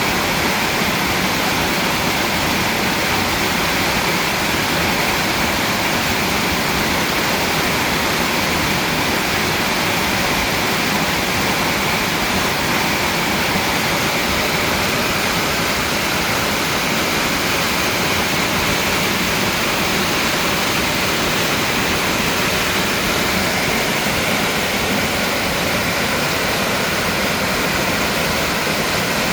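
Mountain valley stream flowing: a steady, even rush of water.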